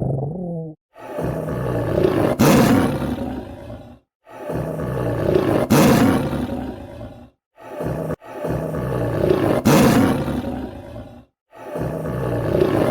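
Tiger roaring: four long roars of about three seconds each, with short silent gaps between, after the tail end of an earlier roar fades out.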